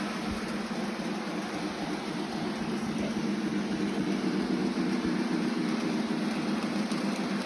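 O scale Polar Express model train running around its track: a steady hum of the locomotive's motor and wheels on the rails, growing slowly louder.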